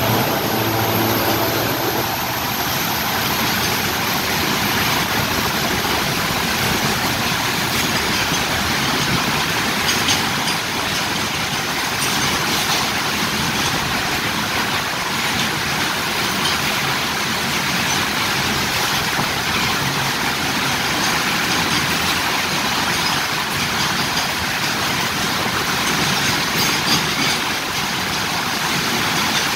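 A diesel locomotive's engine note fades away in the first two seconds as it passes. Then a long rake of loaded coal wagons rolls past at speed: a steady rush of steel wheels on the rails, with a few faint clicks.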